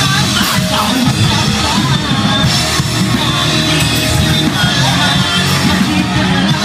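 Hardcore punk band playing live: electric guitar, bass and drum kit, with a vocalist shouting into the microphone. Loud and dense throughout.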